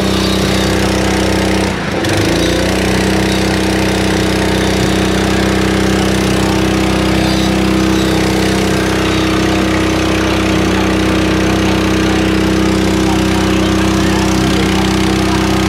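A small boat's engine running steadily and loudly. There is a brief dip about two seconds in, after which it settles into an even, steady drone.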